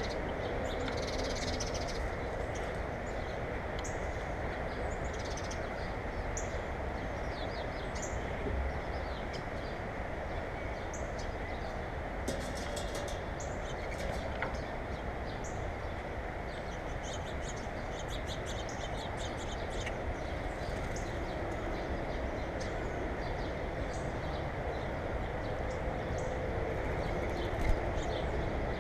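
Birds calling with many short, high-pitched chirps scattered throughout, over a steady background rumble.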